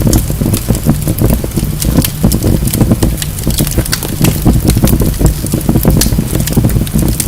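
Wood fire burning in a fireplace, logs crackling and popping with many sharp snaps over a steady low rumble of the flames.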